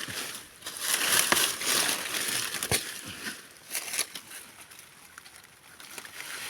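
Leaves and stems rustling and crackling as wild vegetation is handled and plucked by hand, with a few sharp snaps.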